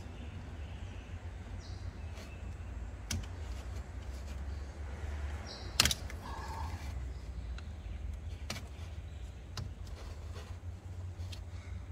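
Scattered clicks and knocks of hand tools and engine parts being handled during water pump removal, over a steady low hum. The sharpest knock comes about six seconds in.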